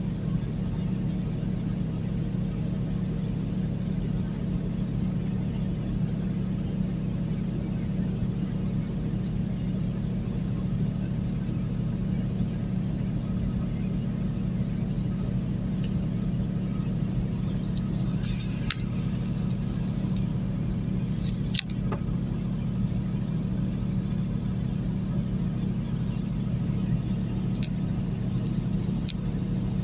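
Steady engine drone and tyre and road noise inside a moving vehicle's cabin at highway speed, with a few brief clicks or taps in the second half.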